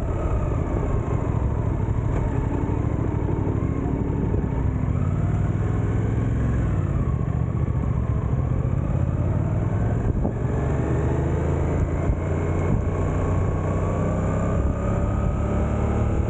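Suzuki GSX-8S motorcycle engine, a parallel twin, running at road speed. Its pitch falls as the bike slows to walking pace in first gear about halfway through, then climbs as it accelerates away again.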